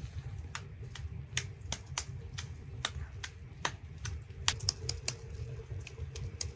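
Wood fire crackling in a stove: sharp, irregular snaps a few times a second over a steady low rumble.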